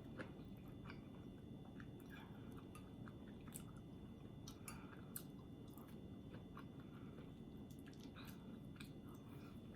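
Faint chewing of soft, creamy food, mainly butter beans and rice: scattered small wet mouth clicks over a quiet room.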